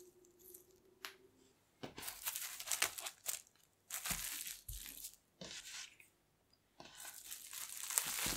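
Plastic cling film crinkling as it is folded over and pressed around a lump of tart dough by hand. It comes in several bursts starting about two seconds in, pauses briefly past the middle, and crinkles more densely near the end.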